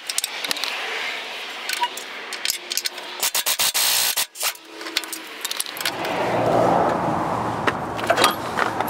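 Red cordless impact wrench running in short bursts, its rapid hammering clicks backing out the bolts that hold a steering bell crank to a truck frame. From about six seconds in, the loosened steel bell crank clatters and scrapes against the frame as it is worked off.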